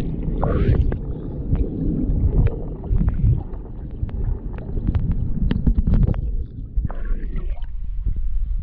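Muffled underwater sound of water moving around a submerged camera: a steady low rumble with scattered sharp clicks and bubble pops.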